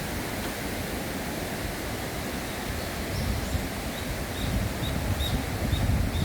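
Steady outdoor noise with wind rumbling on the microphone, gusting harder near the end. A series of short high chirps sounds through the second half.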